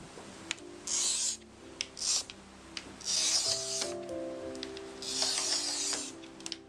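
Hand glass cutter scoring a cracked pane in a leaded stained-glass panel: four scratchy strokes across the glass, the first stage of breaking the broken piece out. Soft background music runs underneath.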